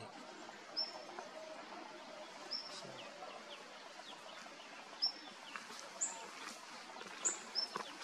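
Short, thin, high-pitched bird call notes, about six of them a second or two apart, with two in quick succession near the end.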